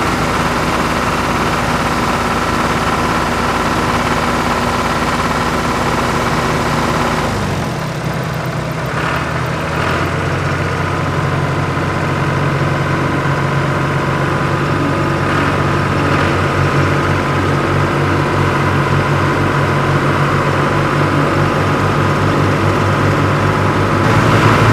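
Tractor engine running steadily with an even throb. About seven and a half seconds in, the engine note changes to a heavier, lower throb that holds to the end.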